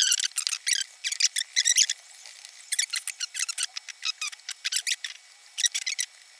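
Rubber drive part of a cassette deck squeaking as it is wiped clean with isopropyl alcohol: rapid runs of short, high squeaks with brief pauses between them.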